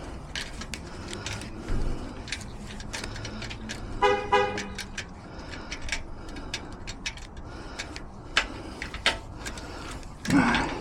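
A brief horn toot about four seconds in, over a run of scattered sharp clicks and taps, with a louder burst of sound near the end.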